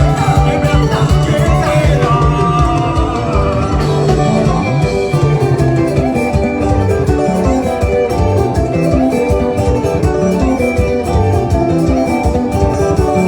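A band playing upbeat music with guitars over a steady beat.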